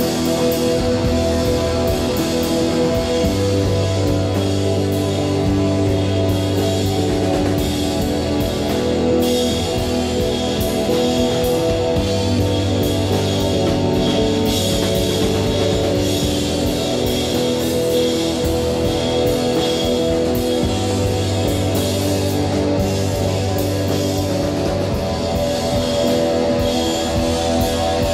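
Live instrumental rock from a three-piece band: electric guitar, bass guitar and drum kit playing together, loud and steady, with frequent cymbal and drum hits.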